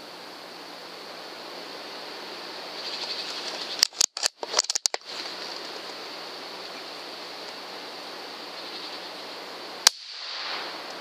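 A single sharp crack from a .22 Magnum rifle shot comes near the end. A quick cluster of sharp clicks comes about four seconds in. Under both is a steady hiss of rain and wind in the woodland.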